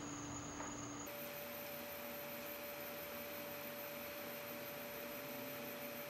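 Faint, steady electronic sine tones from an interactive sound installation over a soft hiss. About a second in, the tones switch abruptly to a different, higher steady tone, which holds.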